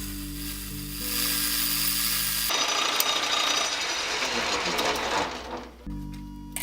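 Electric woodworking power tool running with a steady motor hum. About two and a half seconds in, the hum gives way abruptly to a harsh, noisy cutting sound as the tool works the wooden shaft. The hum returns near the end.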